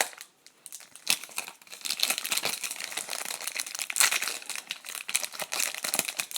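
Wrapper of a hockey card pack being torn open and crinkled in the hands: a dense run of crackling that starts about a second in.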